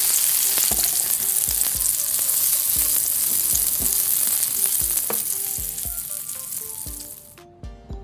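A recorded frying sizzle, food hissing on a hot grill, dubbed in as a sound effect. The sizzle stays steady, then fades and stops about seven and a half seconds in.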